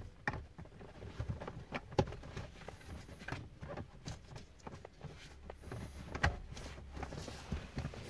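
LuvLap infant car seat's plastic carry handlebar being unlocked at its release buttons and swung back: scattered plastic clicks and knocks, the sharpest about two seconds in and again a little after six seconds.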